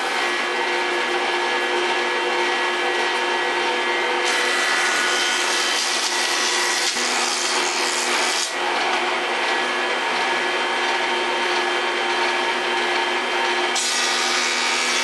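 Jointer running with a steady motor whine while the edge of a plywood sheet is fed across its cutterhead to true it straight. The cutting hiss grows harsher about four seconds in, eases off around eight seconds, and picks up again near the end.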